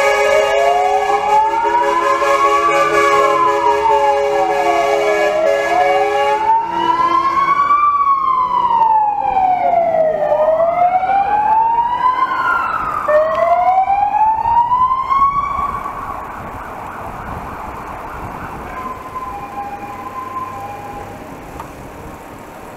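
Fire engine wail siren rising and falling slowly, with a long steady horn blast over it for the first six seconds or so. The siren cuts off about sixteen seconds in, leaving softer wind and tyre noise.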